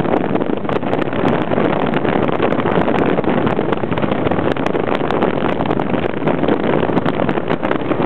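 Honda CT110's single-cylinder four-stroke engine running steadily while riding, mixed with wind buffeting the microphone.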